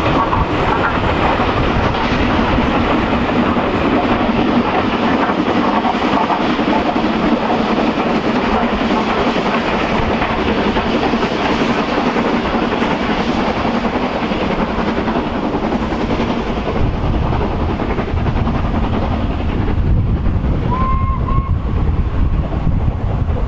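LNER A3 Pacific 'Flying Scotsman', with a Schools class 4-4-0 banking at the rear, working a passenger train hard up a steep 1-in-60 gradient; the steam exhaust and the running of the train fade as it climbs away. In the last several seconds wind buffets the microphone, and a short two-note whistle sounds near the end.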